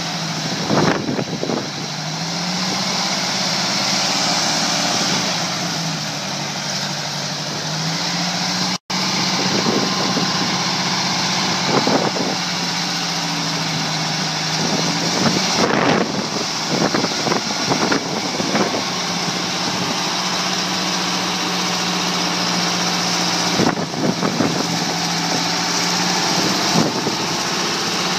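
Heavy-haul truck's diesel engine running, its pitch stepping up and down several times, with a few knocks and clanks.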